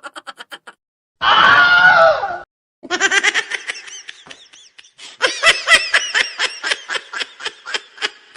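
Meme sound-effect clips played back to back: a fading run of quick pulses, a loud cry lasting about a second, then two stretches of rhythmic laughter, the second one loud and pulsing about four or five times a second.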